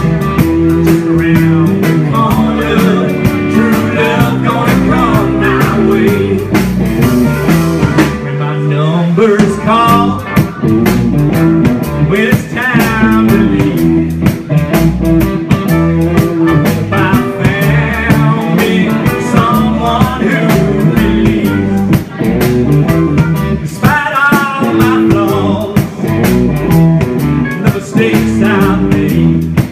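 Live blues-rock band playing: electric and acoustic guitars, keyboard, bass and drums over a steady beat, with a melody line wavering in pitch at several points.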